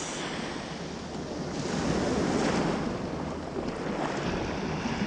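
Surf washing and breaking at the shoreline around a wading angler's legs, with wind buffeting the microphone. The wash swells about a second and a half in and eases off again.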